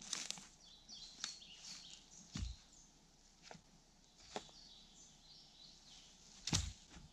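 Dead branches snapping and knocking as they are broken and pulled from fallen logs by hand: separate dry cracks every second or so, a heavier thud about two and a half seconds in, and the loudest crack near the end. Small birds chirp in the background.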